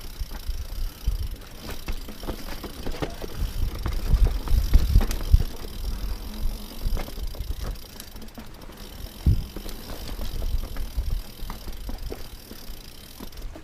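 Mountain bike rolling down rocky dirt singletrack: tyres running over loose stones and the bike rattling, with irregular knocks and clunks over a low rumble. It is busiest about four to five seconds in, and there is a sharp knock a little after nine seconds.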